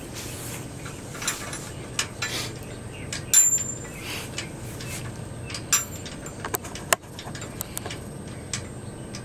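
Scattered light metallic clinks and knocks, the loudest about three and a half seconds in with a short ring.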